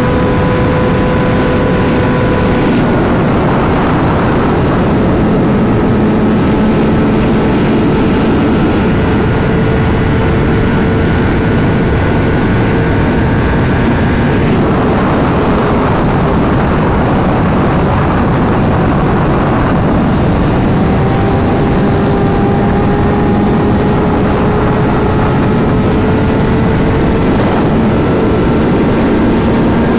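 Honda CBR600RR inline-four engine running under way while riding, its note stepping down about three seconds in and again about halfway through, then climbing slowly, over a constant rush of wind and road noise.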